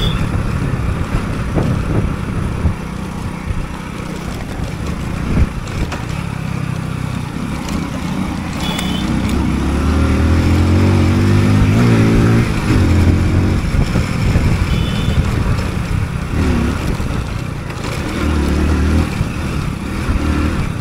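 Motorcycle engine running as the bike is ridden, its revs climbing between about eight and thirteen seconds in, where it is loudest, then settling. There are a couple of sharp knocks in the first six seconds.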